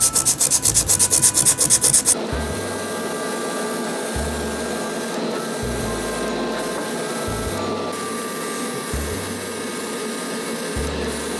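Sandpaper rubbed fast back and forth over dried wood putty, about seven strokes a second, smoothing out small bumps in a filled joint. It stops abruptly about two seconds in, and soft background music goes on after it.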